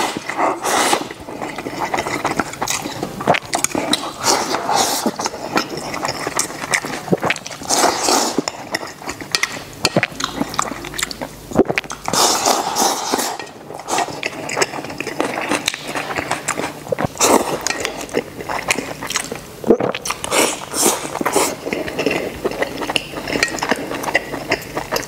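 Close-miked eating: chewing and mouth noises as food is shoveled in, with chopsticks scraping and clicking against a stainless steel bowl, in a dense irregular run of small clicks and rustles.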